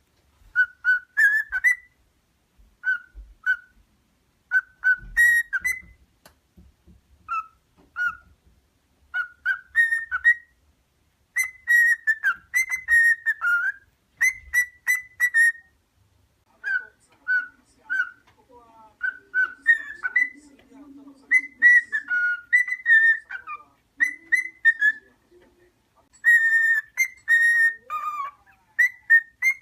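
Cockatiel whistling a song of short clear notes around one pitch, some sliding up or down, in repeated phrases with brief pauses.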